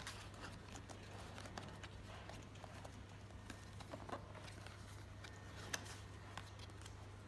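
Scattered light plastic clicks and taps as Mavic Pro drone batteries are handled and fitted into their charging hub, one sharper click about three quarters of the way through, over a low steady hum.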